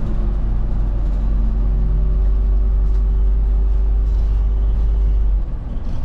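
City bus engine running while the bus drives, heard from inside the passenger cabin as a steady low drone with a steady mid tone over it. A little past five seconds in, the sound dips and the engine note changes pitch.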